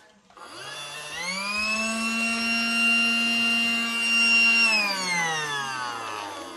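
Small battery-powered motor of a Casdon toy Dyson cordless vacuum switched on: its hum rises in pitch as it spins up, runs steadily for about three seconds, then falls away as it is switched off and winds down.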